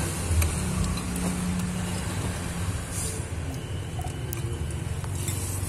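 A steady low engine hum, with a few faint clicks of a fork and spoon against a ceramic bowl.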